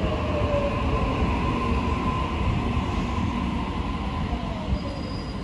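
Sydney Trains Tangara double-deck electric train pulling into a platform, with a steady rumble of wheels on track. Its motors whine, and the pitch of the whine slowly falls as the train brakes.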